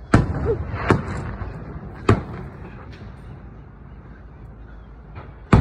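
Aerial firework shells bursting: a series of sharp booms, four loud ones with a few fainter ones between, each trailed by a rolling rumble.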